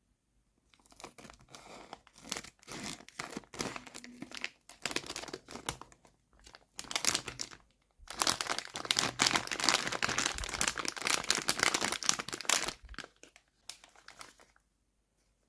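Toy packaging crinkling and tearing as it is unwrapped by hand. It comes in irregular crackling stretches, loudest and densest for about five seconds in the second half, then dies away near the end.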